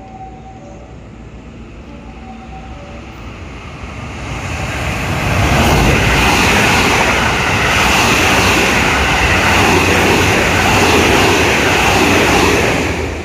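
A train passing close by on the station tracks. Its noise builds from about four seconds in, stays loud for some seven seconds, then falls away near the end.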